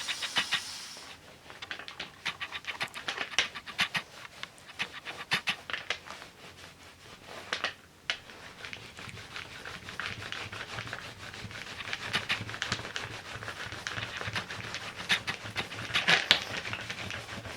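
Many short, irregular scratching and rubbing strokes from hand work on a collotype print, with a few stronger strokes about eight and sixteen seconds in.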